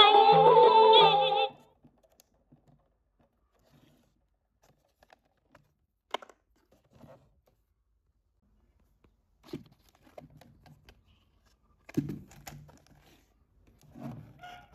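A portable Sony transistor radio playing a sung broadcast through its small speaker, which cuts off abruptly about a second and a half in as it is switched off. Then scattered clicks, knocks and rustling as the radios are handled.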